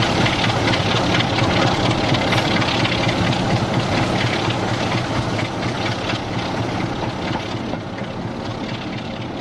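The Sulzer straight-eight diesel engine of a British Rail Class 33 locomotive working hard under load, heard from the train behind it. It is a steady, heavy engine note that fades out gradually over the second half.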